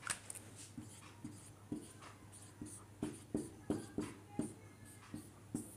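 Marker pen on a whiteboard: a string of short, faint taps and squeaks as lines and small circles are drawn.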